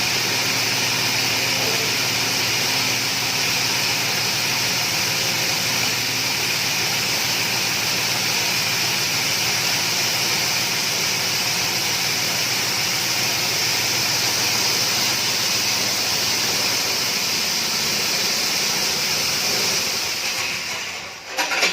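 Motorised grass chopper and grinding machine running at a steady loud pitch. Near the end it winds down and cuts off, with a short sharp knock.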